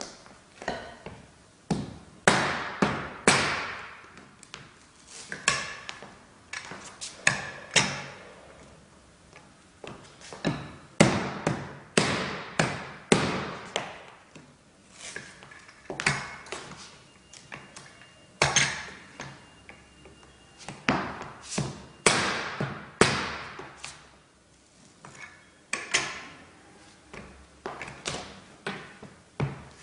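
A hammer striking a steel pull bar and Parky wood floorboards: irregular sharp knocks, single and in quick runs of two or three, some ringing briefly.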